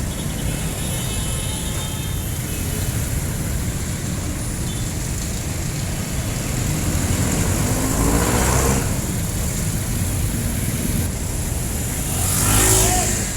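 Jeepney street traffic: a steady engine rumble, with two vehicles passing close, one about two-thirds of the way in and a louder one near the end, their engines rising in pitch as they pull past.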